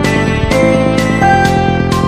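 Background music: held notes and chords that change with a fresh attack roughly every half second to second, at a steady loud level.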